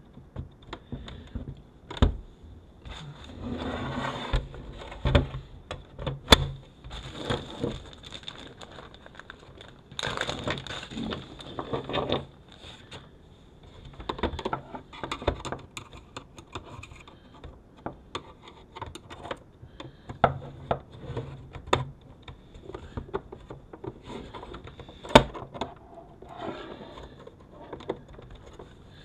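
The plastic-and-metal housing of a 2016 Chrysler Town & Country's rear-seat video entertainment unit being handled, turned over and worked on against a wooden table: stretches of scraping and rustling with many scattered clicks and a few sharp knocks.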